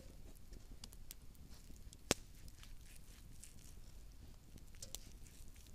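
Quiet sounds of a knife slicing through a thick cooked steak, with scattered faint crackles and one sharp snap about two seconds in.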